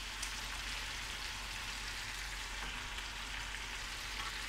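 Chicken pieces frying in hot oil in a steel karahi, a steady sizzle, with a fresh dollop of ginger-garlic paste sitting on top.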